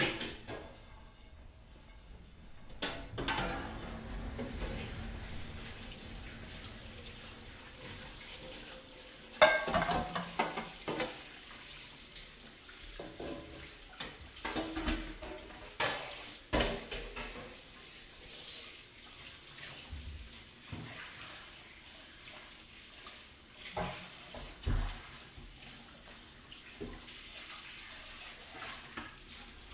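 Scattered knocks and taps at irregular intervals over a faint steady hiss, the loudest knock about a third of the way in.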